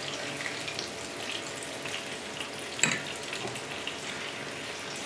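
Salami slices sizzling in balsamic vinegar in a hot frying pan, a steady hiss with small crackles. Metal tongs click once against the pan about three seconds in.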